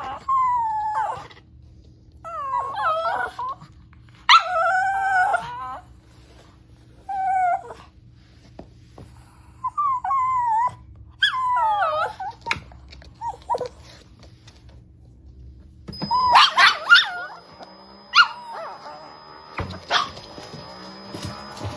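A dog whining and howling in a series of drawn-out calls, each about a second long, bending up and down in pitch with pauses between. Near the end the background changes and shorter dog calls follow over a steady high tone.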